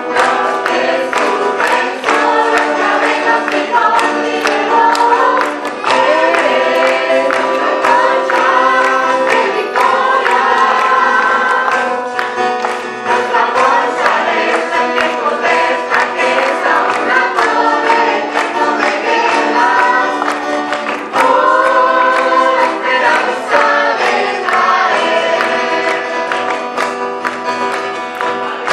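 A church choir singing a worship song in parts, with a guitar strummed in a steady rhythm.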